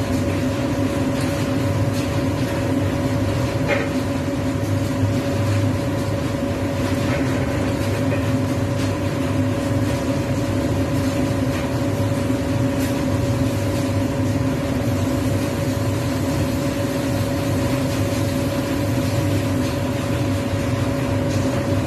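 A steady mechanical hum, a constant whine over a low drone, with a few faint ticks.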